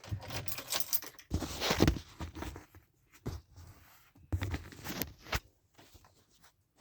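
Intermittent rustling, clicks and knocks, in short irregular bursts with brief quiet gaps.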